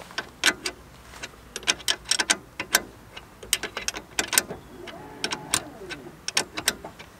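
Hand tools clicking and clinking on metal while the lower brake caliper bolt is undone, in irregular clusters of sharp clicks, with a brief squeaky tone about five seconds in.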